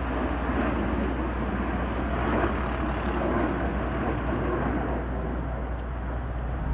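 Jet noise from two twin-engine F-15 fighters flying low overhead, heard from the ground as a steady, dense rush with a strong low hum.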